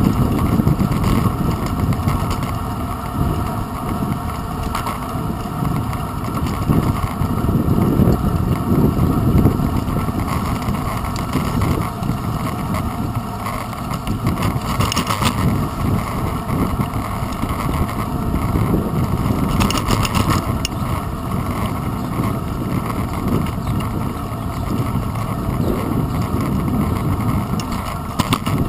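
Wind buffeting and road rumble on a handlebar-mounted GoPro Hero 2's microphone as a bicycle rolls along a paved path, a steady fluctuating low rumble. Two short rattles come about halfway and two-thirds of the way through.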